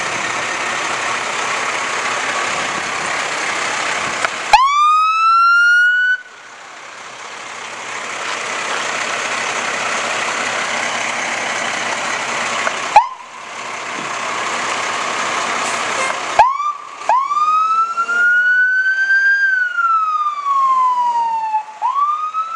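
Dennis Sabre fire engine's siren sounding in bursts over steady engine noise. A quick rising whoop about four and a half seconds in cuts off after a second and a half, and a brief chirp follows at about thirteen seconds. From about sixteen seconds come two short rising starts, then a slow wail that rises and falls, and another rise near the end.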